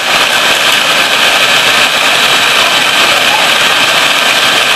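Electric mixer running steadily at high speed, whisking eggs for a sponge cake batter.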